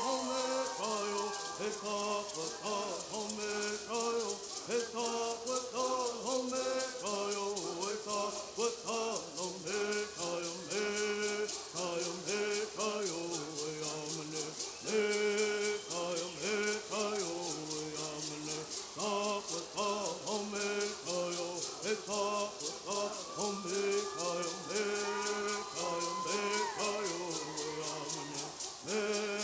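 Southern California Native bird singing: a group of voices chanting a bird song together over gourd rattles shaken in a steady, fast, even beat.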